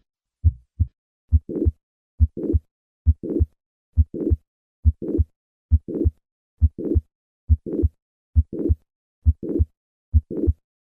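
Heart sounds at about 70 beats a minute: a first beat with only the first and second heart sounds, then on every beat a systolic murmur that starts in mid-systole and grows louder up to the second heart sound. This crescendo murmur is the mitral regurgitation of mitral valve prolapse.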